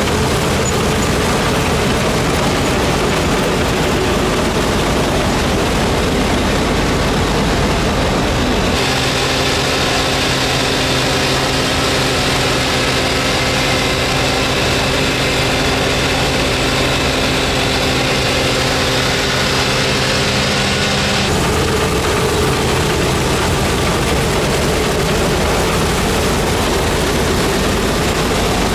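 Rostselmash DON-1500B combine harvester running under load while harvesting wheat, a steady loud mix of engine and threshing machinery. About nine seconds in the sound shifts to a steadier hum in which several even tones stand out. It changes back about twelve seconds later.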